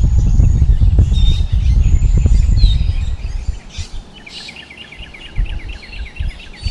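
Strong wind buffeting the microphone with a heavy low rumble that dies down about halfway through. Birds chirp and whistle over it, and in the second half one bird gives a fast trill of about six notes a second.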